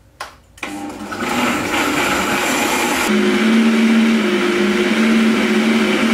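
Countertop blender switched on about half a second in after a short clatter, running at full speed and blending chickpeas, onion, oil and water into hummus. About three seconds in, the coarse chopping noise eases and a steady motor hum comes through as the mixture turns smooth.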